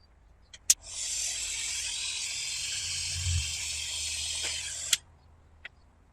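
Small gas torch lit with a click and hissing steadily for about four seconds as it heats shrink tubing on a cable end, then shut off with a click.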